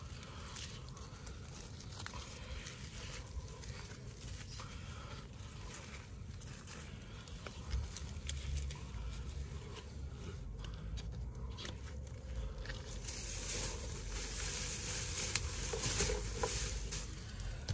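Dry dead leaves, twigs and old stems rustling and crinkling as gloved hands gather them and pull them out of the soil.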